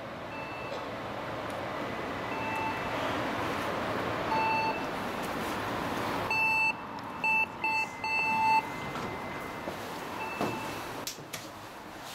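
Electronic beeps sound at intervals over a background rush of noise. A single beep comes every couple of seconds at first, then a loud run of quick beeps about six to eight seconds in, then a few more beeps.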